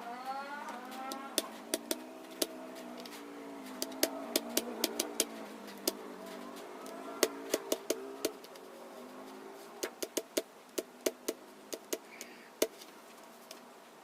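Computer keyboard keys clicking in irregular bursts of typing, with pauses between the bursts. A fainter background sound slowly rises and falls in pitch underneath.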